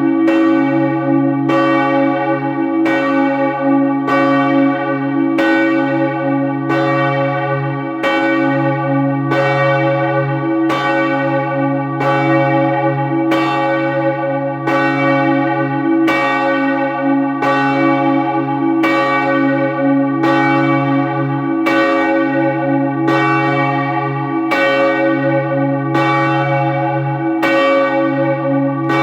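Heavy church tower bell being rung up (raised) from the down position, one of the back four of a ring of twelve, which weigh from about 14 to 32 cwt. It strikes at an even pace of roughly one stroke a second, each stroke a full, sustained ring with a deep hum under it, as it swings higher.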